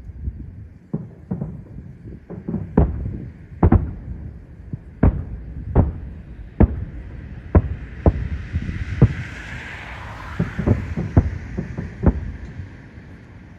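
Aerial firework shells bursting in a rapid, irregular series of booms, with a hissing crackle from crackling or glitter shells rising and dying away past the middle.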